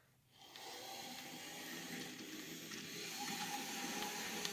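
Model Union Pacific GP20 diesel locomotive running along the layout track: a steady electric-motor whir with wheel-on-rail hiss, starting about half a second in and slowly growing louder as it approaches.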